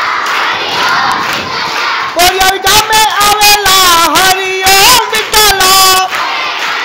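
Crowd of boys shouting and cheering, with one loud, long held shout close by from about two seconds in until about six seconds in.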